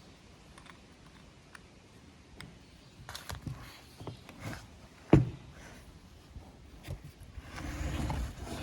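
Chainsaw parts being handled on a workbench: scattered light clicks and taps, one sharp knock about five seconds in, then about a second of scraping or rustling near the end.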